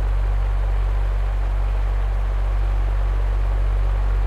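Electric fan running steadily: a low, even motor hum under a constant rush of moving air, played as a looped fan sound from a relaxation-sounds app.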